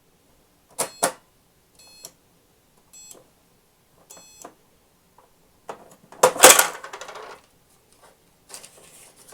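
Toy Fisher-Price cash register being worked: two sharp clicks, then three short high electronic beeps, then a loud clattering rattle about six seconds in as the cash drawer and toy coins are handled. Softer rustling and clinking follow near the end.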